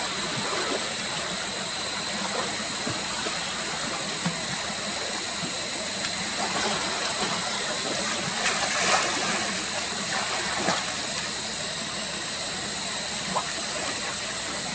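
Steady hiss with a thin, high, steady whine over it, broken by a few brief sharp sounds about two-thirds of the way through.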